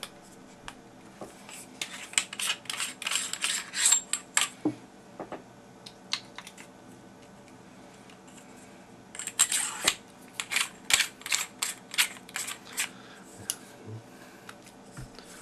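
Clicks and rattles of a cheap shotgun microphone being handled as a battery goes into its battery compartment and the tube is screwed back together, in two bursts of rapid clicking: one early, from about two to five seconds in, and one from about nine to thirteen seconds in.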